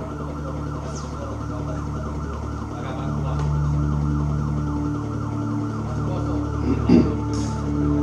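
Pre-recorded intro tape playing over a PA: sustained low synth notes that shift every second or two under a fast warbling, siren-like tone, with one short knock about seven seconds in.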